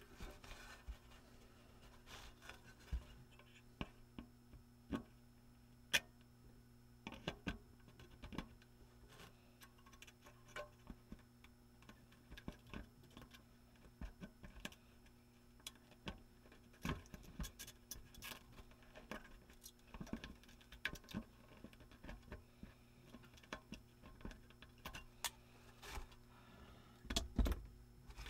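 Irregular small clicks and taps of tools and small parts being handled on a workbench, with a cluster of louder knocks near the end, over a faint steady hum.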